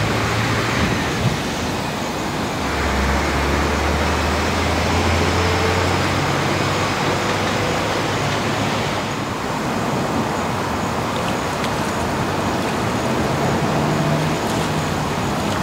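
Steady road traffic noise, with the low hum of passing vehicle engines that comes and goes.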